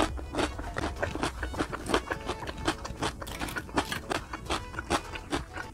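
Close-miked chewing of crispy fried food, with many irregular crunches and crackles, several a second.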